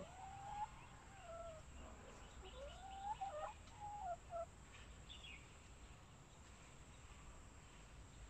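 Domestic hens settled in a nest box to lay, giving soft drawn-out calls that slide up and down in pitch, several in a row over the first four seconds or so, with a short higher falling call just after.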